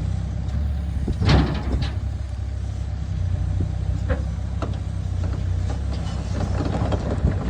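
Mini excavator's diesel engine running steadily, with a sharp clank about a second in and a few lighter knocks later.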